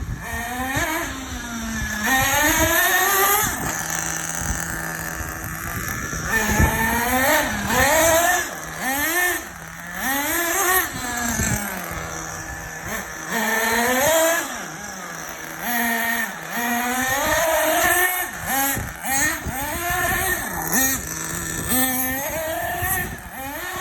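Nitro RC car's small two-stroke glow engine revving up and down over and over, its pitch rising and falling about once a second, with a steady low tone in some of the pauses.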